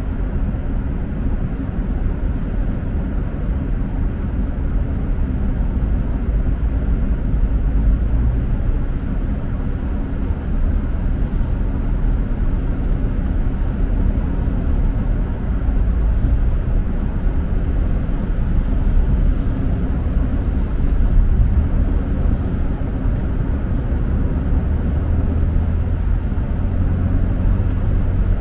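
Road noise heard inside a car on a wet highway: a steady low rumble of tyres and engine with the hiss of tyres on wet pavement, and a few faint ticks.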